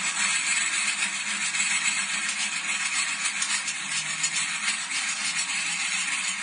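Electric hydraulic pump unit running steadily to extend a hydraulic cylinder under test. The sound is a steady rushing noise, mostly high-pitched, that cuts off abruptly at the end.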